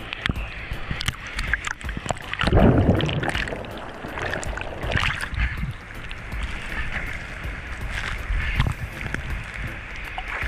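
Choppy sea water sloshing and splashing around an action camera riding at the surface, the camera dipping in and out of the water. There is a loud surge of water about two and a half seconds in.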